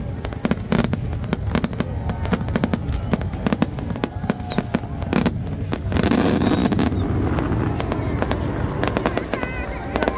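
Aerial fireworks in a rapid barrage: a fast, continuous string of bangs and crackles, denser and louder for about a second around six seconds in.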